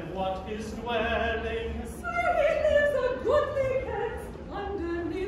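A quartet of carolers, men's and women's voices together, singing a Christmas carol, loudest in the middle on a long held note.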